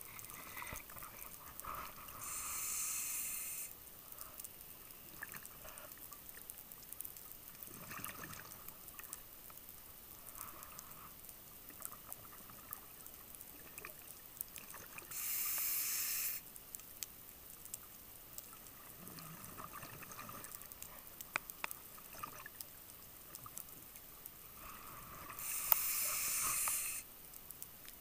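Scuba regulator exhaust bubbles as the diver breathes out: three bursts of bubbling, each about a second and a half long and roughly ten seconds apart. Faint scattered clicks come in between.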